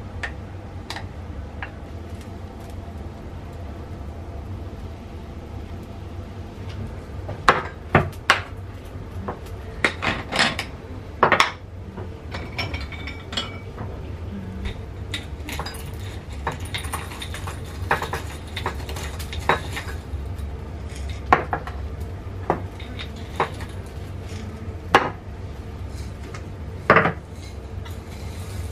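Kitchenware being handled: irregular sharp clinks and knocks of a spoon against glass jars and a ceramic cup, loudest in a cluster about eight to twelve seconds in, over a steady low hum.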